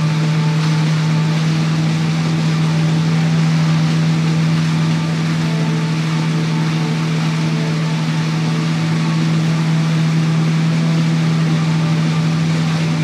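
Motorboat engine running steadily at an even speed while towing a wake surfer, a constant low drone, under the steady rush of the churning wake water.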